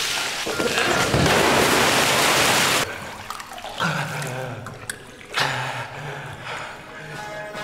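A loud rush of water for about two seconds, then dying down into quieter sounds.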